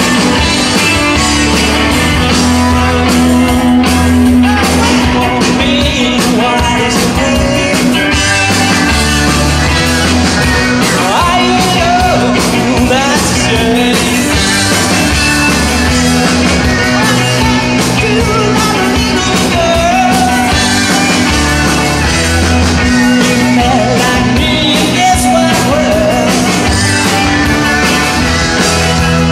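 Live rock band playing loudly, with electric guitars, bass, drums and keyboards, and a male lead vocalist singing over them.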